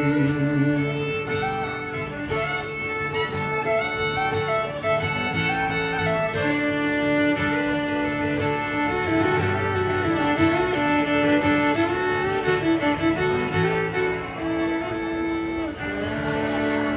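Fiddle playing a melody over guitar, the instrumental close of a country song, fading down near the end.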